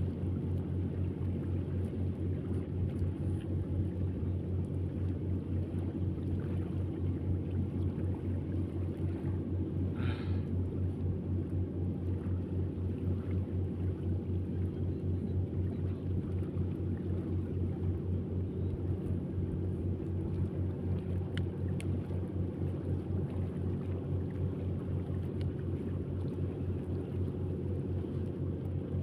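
An engine running steadily at an even speed, a low hum with a fast regular pulse. A brief high, wavering sound cuts in once about ten seconds in.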